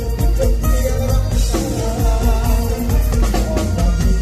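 Live amplified band music in Isan luk thung style, with heavy bass and a steady drum beat, and a male singer singing into a microphone.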